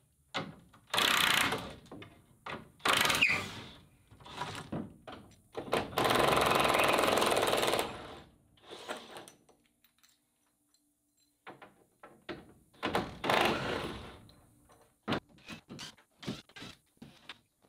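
Cordless impact driver hammering out half-inch lag screws from a wooden shelf board, in several bursts; the longest lasts about two seconds. Short knocks of wood and tools come between the bursts and near the end.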